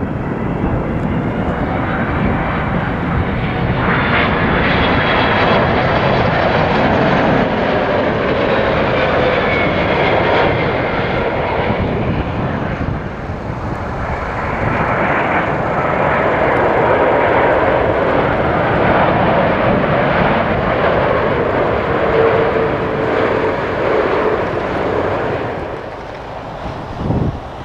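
Twin-engine jet airliners passing low on landing approach, a Boeing 777-200ER first: steady jet engine noise with whining tones that slowly fall in pitch. The noise eases briefly around halfway as a second airliner's engines build again, then drops away near the end.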